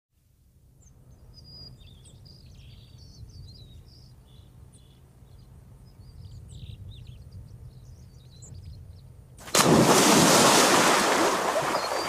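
Birds chirping and calling over quiet marsh ambience, then about nine and a half seconds in a sudden loud splashing as a dog plunges into the pond and swims through the water.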